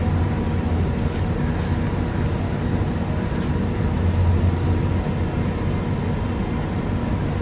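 Steady low background rumble with an even hiss, unchanging throughout, with no distinct events.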